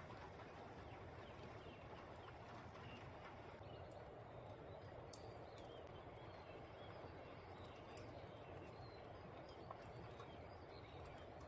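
Faint steady outdoor night ambience with a few soft, scattered bird chirps and an occasional faint click; no thunder is heard.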